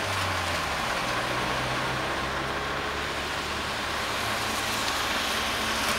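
A vehicle engine idling steadily, with traffic noise going by on the road.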